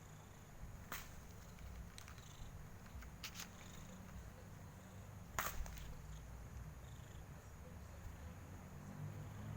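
Domestic cat purring steadily, a faint, low rumble, the contented purring of a happy cat. A few soft clicks sound over it, the loudest a sharp double click about five and a half seconds in.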